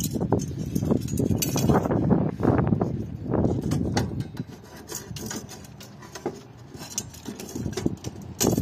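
Kitchen clatter: utensils and dishes clinking and knocking, busy in the first half and sparser after.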